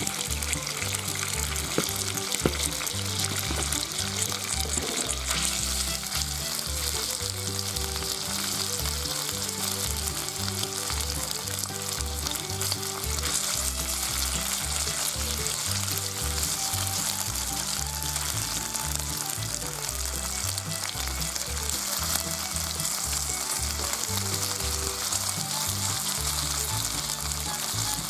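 Sliced pork belly sizzling steadily in hot oil in a frying pan, with a few light clicks in the first couple of seconds as the slices go in, and chopsticks stirring and separating the slices.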